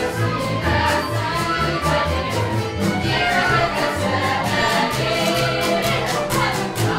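Live Transylvanian folk dance band of fiddle, bowed double bass and a small plucked string instrument playing a dance tune with a steady, even beat, and a group of voices singing along.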